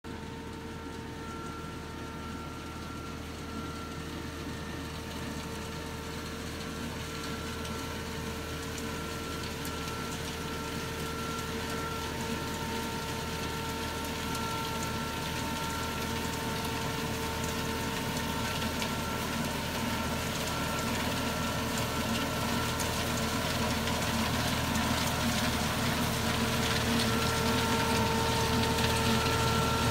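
Tractor engine running with a towed KEFELI KF1800 hazelnut harvester at work, its machinery giving a steady whine over the engine. The sound grows steadily louder as the machine approaches.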